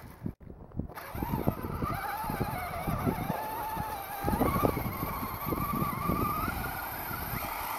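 Brushless electric motor of a radio-controlled Axial Wraith buggy whining as it drives through snow, its pitch wavering up and down with the throttle. Repeated short thumps and crunches come from the tires and chassis as it bounces over the snow.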